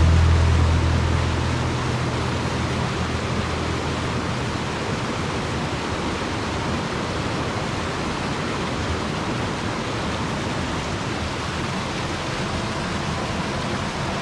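Steady rush of a mountain creek's flowing water. The tail of background music fades out over the first couple of seconds.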